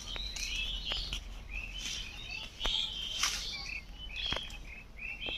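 Birds chirping: many short, high calls with quick upward and downward flicks, repeated throughout, with a few faint clicks among them.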